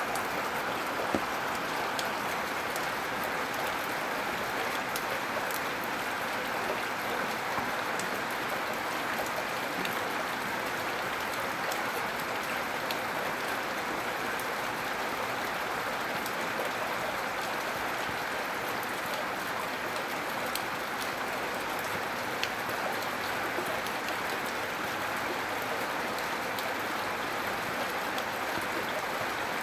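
Steady, gentle rain falling, an even hiss with scattered sharp drop ticks throughout.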